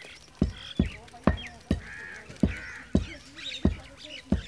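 Footsteps thudding on a packed-earth rooftop, about two a second, with birds chirping and calling around them.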